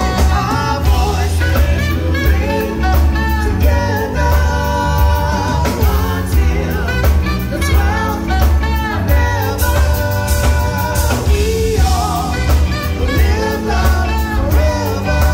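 Live band music with a woman singing lead over backing singers, electric bass, drum kit and keyboards, with a heavy, steady bass.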